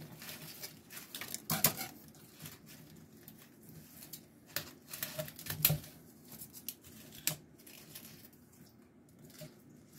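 Long leaves of a large houseplant rustling and crinkling as they are handled and old leaves are pulled off, with irregular clicks and a few sharper snaps, the loudest about one and a half and five and a half seconds in.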